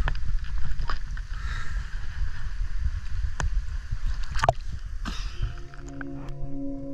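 Seawater sloshing and splashing around a camera held at the water surface, with a heavy low rumble of water against the microphone and a few sharp splashes as a wetsuited freediver moves and duck-dives. About five and a half seconds in, ambient music with long held tones fades in.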